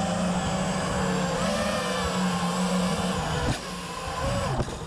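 Brushless motors and propellers of a 5-inch FPV quadcopter running at low throttle near the ground: a steady motor whine. About three and a half seconds in there is a knock as the quad touches down, and near the end the whine drops in pitch as the motors fall back toward idle without disarming.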